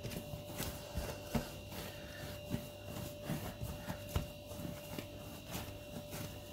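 Hands kneading soft dough on a countertop, with irregular soft thumps and rubbing as the dough is pushed, folded and pressed down. A faint steady hum lies under it.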